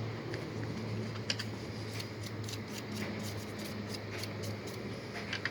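A plastic phone case being scrubbed and handled: a run of small scratchy clicks, with a sharper click about a second in and two more near the end, over a low steady hum.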